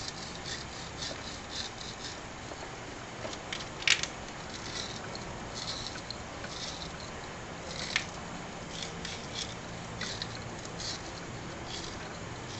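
Hand work on engine parts: short, irregular scratching and scraping, with a sharper click about four seconds in and another about eight seconds in.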